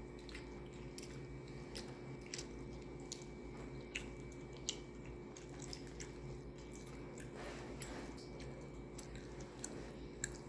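Faint eating sounds: chewing with scattered soft, wet mouth clicks and the squish of fufu and chicken stew handled by hand, over a steady low hum.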